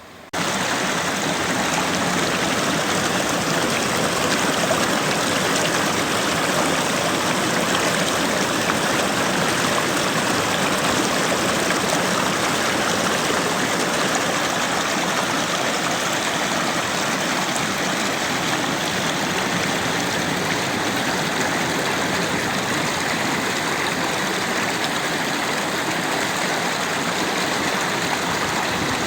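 Steady rushing water, an even hiss with no rise and fall of separate breaking waves, starting abruptly just after the start.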